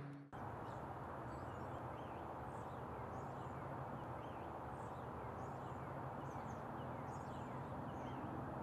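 Outdoor ambience: a steady background hiss and low hum with faint bird chirps repeating every second or so.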